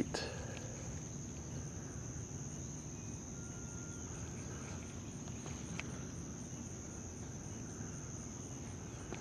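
Summer insects, crickets or similar, chirring in the shoreline vegetation: one steady, high-pitched drone with no breaks, over a faint low rumble.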